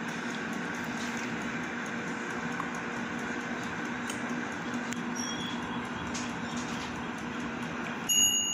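Air fryer running with a steady fan hum while it cooks. Near the end a high electronic beep starts: the timer signalling that cooking is done.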